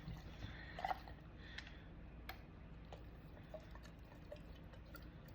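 Faint scattered clicks and light taps, a few irregular ones each second or so, over a low steady hum.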